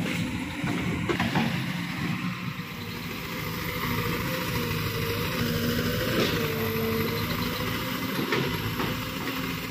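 Kobelco crawler excavator's diesel engine running as the machine moves on its tracks: a steady low drone, with a few sharp knocks about a second in, midway and near the end.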